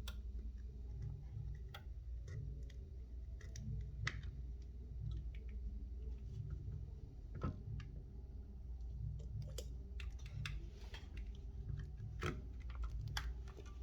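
Scattered light clicks and scrapes of a thin metal pry tool (iSesamo) working under an iPhone 12 Pro Max screen, breaking up the display adhesive, over a steady low hum.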